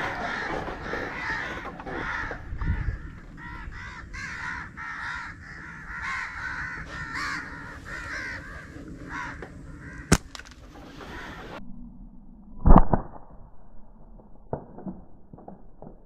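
Birds calling over and over in a run of short, arching calls, which stop suddenly near the end. A single sharp snap comes about ten seconds in, and a loud thump follows a couple of seconds later.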